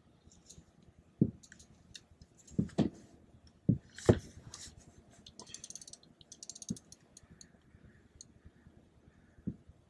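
Fishing reel clicking in short runs of rapid ticks while a hooked fish is being played, with several dull knocks scattered through, the loudest about a second in and about four seconds in.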